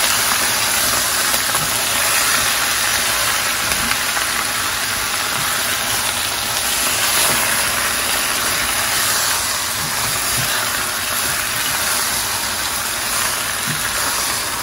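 Chicken pieces and vegetables sizzling steadily in hot oil in a pot on the stove while being stirred with a silicone spatula.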